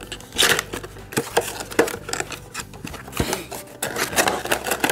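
Hands handling and opening a miniatures booster pack: rapid irregular clicks, taps and rustles of the packaging, with a longer crinkling rustle near the end.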